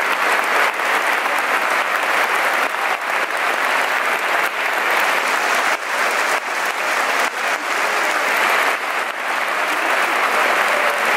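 Large football stadium crowd applauding steadily, thousands of hands clapping at once. It is a pre-match minute's applause in tribute to someone remembered on the big screen.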